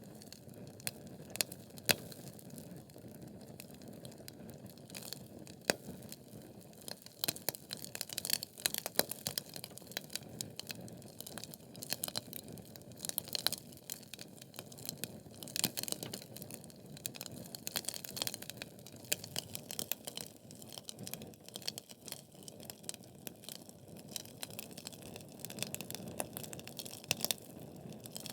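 Logs burning in a fireplace: a steady low rush of flame under many sharp, irregular crackles and pops of the burning wood.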